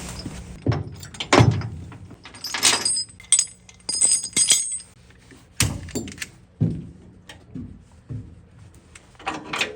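Irregular knocks and thuds with metal clinking and jingling, the brightest ringing clinks coming about three to four and a half seconds in.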